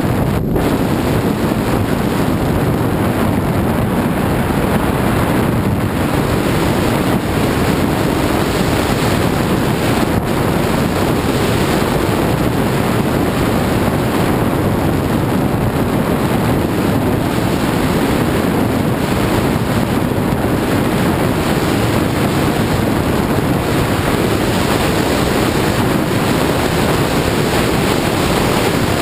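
Steady rush of wind buffeting an action camera's microphone as a skier descends a groomed run at speed.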